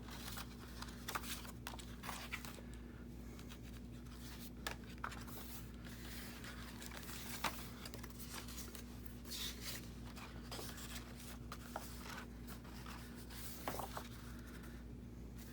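Paper and card being handled: scattered rustling, sliding and light taps as a paper pocket is fitted onto a journal page, over a steady low hum.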